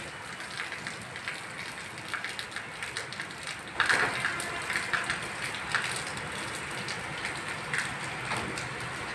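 Rain falling on a wet roof, drops striking stainless-steel bowls and plates of collected water. It grows louder about four seconds in.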